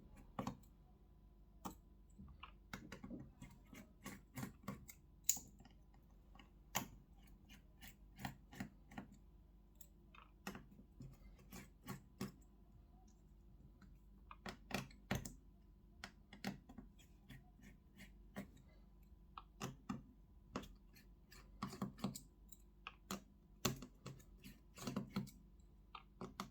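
Small, irregular clicks and taps of a precision screwdriver working the phone's small screws out and the screws being set down.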